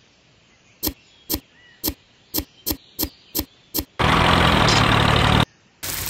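Sharp clicks and taps, roughly two a second, as a small metal scoop digs sand in a toy trailer's wooden bed. About four seconds in, a loud burst of noise with a low hum follows for about a second and a half.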